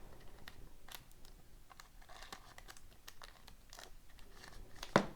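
Hockey trading cards being handled: faint scattered clicks and rustling as cards slide and are shuffled, with one sharper tap just before the end.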